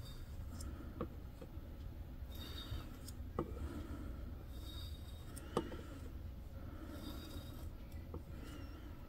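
A metal spatula scraping thick etching cream off a stencilled glass bottle and back into its jar: faint, soft scrapes with a few light clicks.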